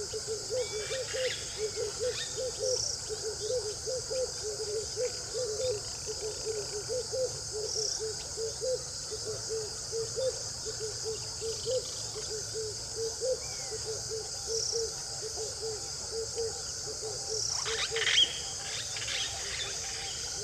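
Outdoor natural ambience: a steady high insect drone, a low pulsing call repeating about three times a second throughout, and a few scattered bird chirps. A short louder burst comes about 18 seconds in.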